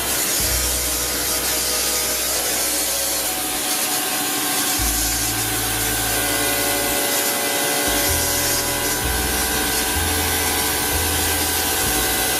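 Pressure washer running and spraying through a foam-bottle lance: a loud, steady hiss of spray over the steady hum of the machine's motor and pump, with a low rumble that comes and goes.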